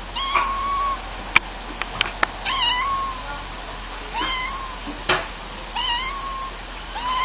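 Tortoiseshell cat meowing repeatedly, about five drawn-out meows roughly a second and a half apart. A few sharp clicks fall between them.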